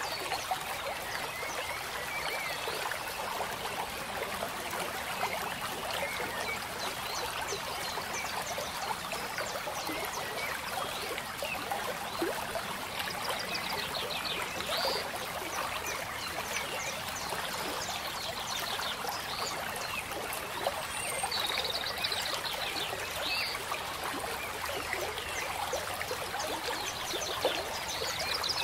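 Steady trickle of running water, with short high trills a few times in the second half.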